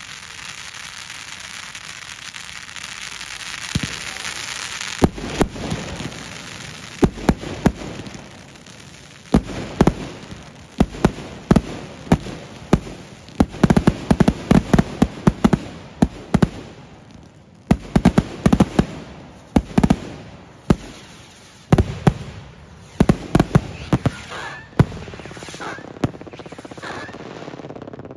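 Consumer fireworks going off: a hiss builds over the first few seconds, then dozens of sharp bangs follow in irregular rapid clusters, with a few rising whistles near the end.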